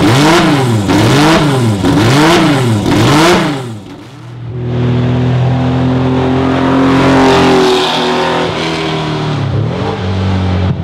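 BMW M1's straight-six race engine being blipped, about five quick revs in a row, each rising and falling in pitch. After a brief dip it is held at a steady pitch for several seconds, then revved once more near the end. Loud throughout.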